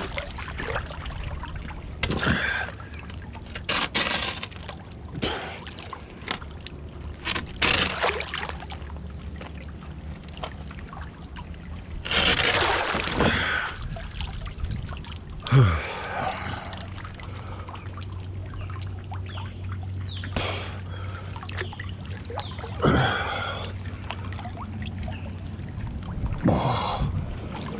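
Water trickling and splashing, broken by scattered knocks and clatter from work on the dock, over a steady low hum. Near the middle there is a louder stretch of rushing noise.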